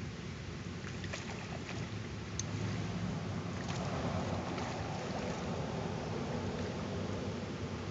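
Steady outdoor noise of wind and water by the water's edge, with a few light clicks in the first couple of seconds.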